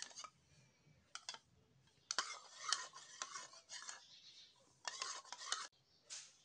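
A metal spoon scraping and clicking against a small bowl as it stirs a thick sanitizer gel, in irregular bursts of short scrapes and taps.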